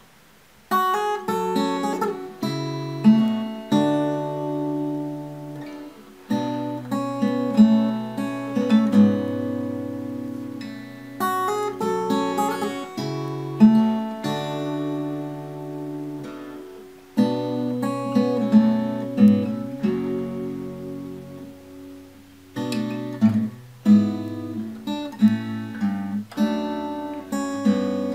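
Solo steel-string acoustic guitar with a capo, playing picked and strummed chords in slow phrases that start about a second in, the notes left ringing and fading between phrases.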